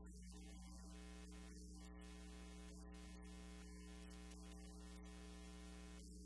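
Near silence: a steady electrical mains hum with faint hiss.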